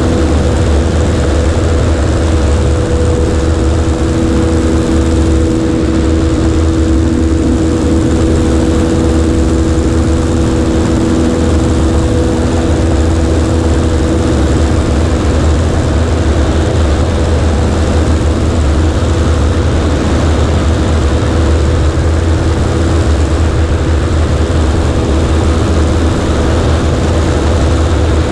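Cessna 140A's single piston engine and propeller droning steadily in flight, a constant pitched hum over rushing airflow, heard from a camera on the right wing.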